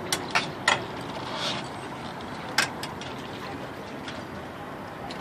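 A few sharp clicks and clinks of sailboat rigging hardware being handled on the mast: three in the first second, then two more about halfway through, over a steady background hiss.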